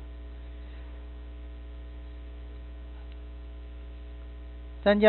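Steady electrical mains hum: a constant low buzz with a few fainter steady tones above it, unchanging until a man's voice starts near the end.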